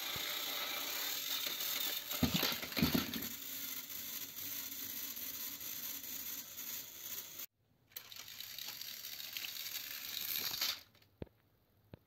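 Battery-powered plastic toy trains whirring along plastic track, then a loud clatter of toy engines and wagons tumbling off the end of the track and piling up, about two to three seconds in. The motor whirring goes on afterwards, breaks off briefly, and stops near the end, leaving a couple of light clicks.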